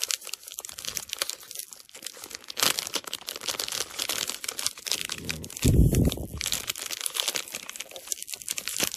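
Packaging of a sealed McDonald's NHL Star Sticks mystery pack being torn open and handled by hand: continuous rapid crinkling, scratching and tearing, with one louder, deeper bump about six seconds in.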